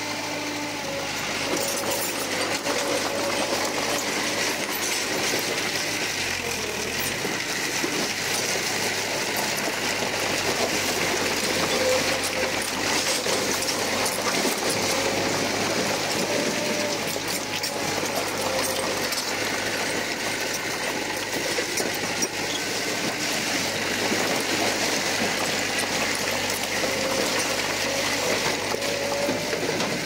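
Bulldozer at work: its diesel engine runs steadily under a dense, rapid metallic clatter from the steel tracks.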